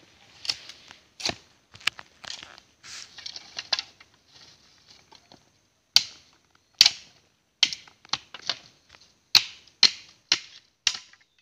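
Knife cutting and splitting a bamboo stick: a string of sharp, irregular cracks and short scrapes, about two a second, louder in the second half.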